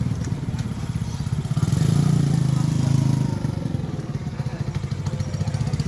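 A vehicle's engine running steadily, growing louder about one and a half seconds in and easing off again after about three seconds.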